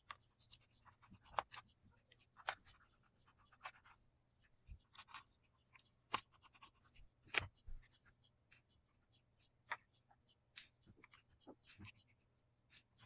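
Faint, scattered small clicks and scratchy scrapes of a T6 Torx screwdriver working the tiny screws out of a laptop's bottom cover.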